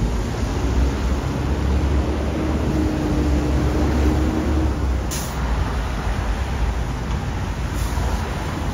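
Vehicle noise: a loud, steady deep rumble, with two short high hisses about five and eight seconds in.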